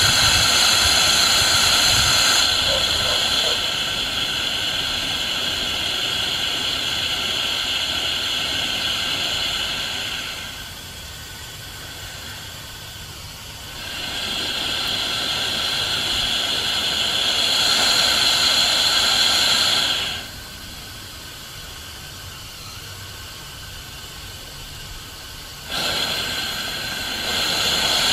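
Steam hissing loudly out of an 1890s Atlas automatic stationary steam engine around its cylinder. The hiss eases off twice, each time for a few seconds, and then surges back.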